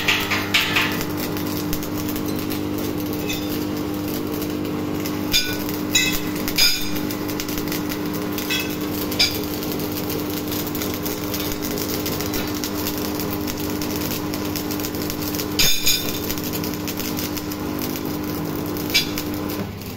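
Stick (arc) welding on a steel frame: the arc crackles and sizzles steadily, loudest in the first second, over a steady low hum. A few sharp clicks stand out about five to seven seconds in and again near sixteen seconds.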